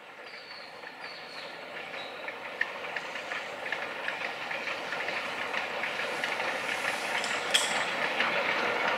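Puffing Billy narrow-gauge steam train approaching, its wheels clattering on the track and growing steadily louder, with a sharp click about seven and a half seconds in.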